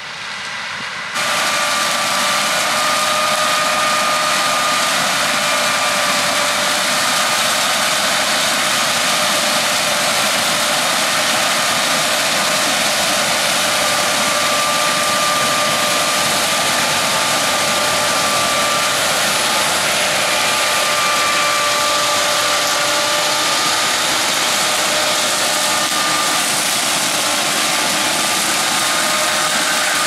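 Claas Lexion 8700 combine harvesting grain maize and unloading into a tractor-drawn trailer alongside: loud, steady machinery noise with a high whine held throughout, coming in abruptly about a second in.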